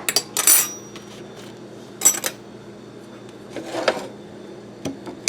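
Metal fork clinking against a plate a handful of times, the loudest strike about half a second in with a short high ring, another about two seconds in.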